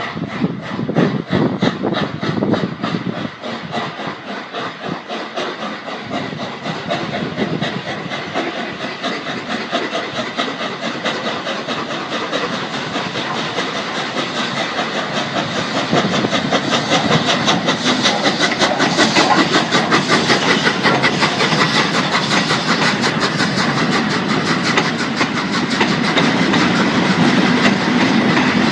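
Steam locomotive Flying Scotsman, an LNER A3 Pacific, approaching and passing with its train: a rapid, even rhythm of exhaust beats and wheel clatter that grows steadily louder. Near the end the train's West Coast Railways Class 37 diesel locomotive passes close, its engine running.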